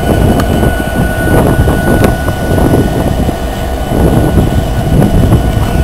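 Kansas City Southern diesel-electric freight locomotives passing close by, engines running with a loud, steady low rumble and a thin, steady high whine over it.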